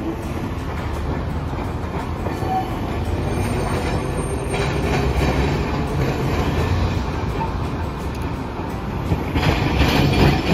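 Hiroden 700-series tram No. 707 rolling through a street-track junction toward the listener, a low rumble growing louder. Near the end comes a quick run of clacks as its wheels cross the switches and crossings.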